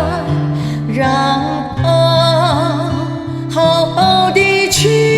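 A woman singing a slow Mandarin ballad, holding long notes with vibrato, through a condenser microphone over a karaoke backing track with guitar.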